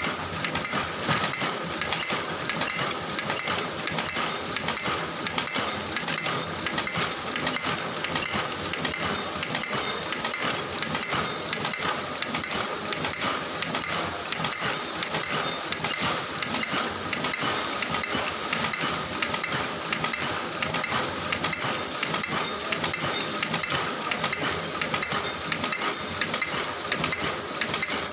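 Plastic bag making machine with a pneumatic hole punch running steadily: a continuous mechanical rattle with a steady high-pitched whine.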